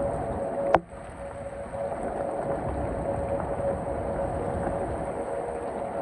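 Heavy thunderstorm rain and wind as a steady rushing noise, with a faint steady tone running through it. A single sharp click comes just under a second in, after which the noise drops for about a second before returning.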